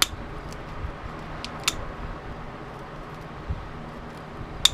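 Cutters snipping into the plastic around copper winding, with three sharp clicks about a second and a half to three seconds apart and a few faint ticks between them.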